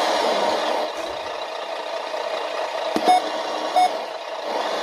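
Simulated truck engine sound from a GT Power sound and light module, playing steadily through its small speaker. About three seconds in come two short beeps, under a second apart.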